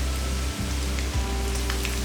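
Food frying in hot oil, a steady sizzle with scattered crackles, under background music with sustained bass notes.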